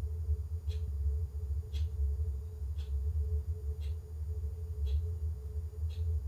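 A steady low hum with a thin steady tone above it, and a short high tick about once a second.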